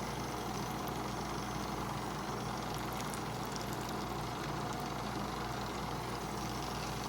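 Mini beauty blender washing machine's small electric motor running steadily, spinning a sponge in soapy water, with a constant hum.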